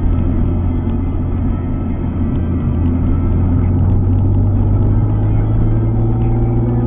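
Alfa Romeo 147 GTA's 3.2-litre V6 engine running as the car drives along. Its low drone climbs gently in pitch through the second half as the revs rise.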